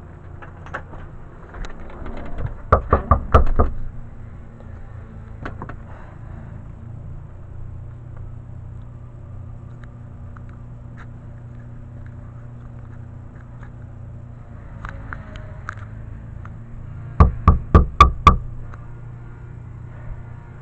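Knuckles knocking on a door: two rounds of five or six quick, evenly spaced knocks, about fourteen seconds apart.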